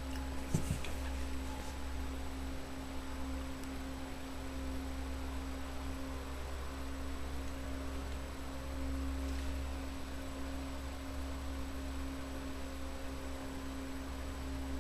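A steady electrical hum: a low drone with a constant tone above it. A single light knock less than a second in.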